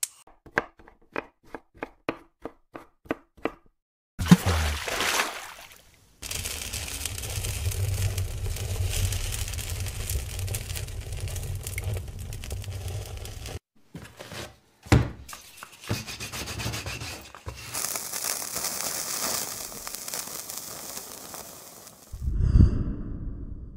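Gas-stove igniter clicking about three times a second, then the burner catching with a sudden whoosh about four seconds in and burning with a steady rushing noise. Later a sharp hit, more rushing noise, and a thump near the end.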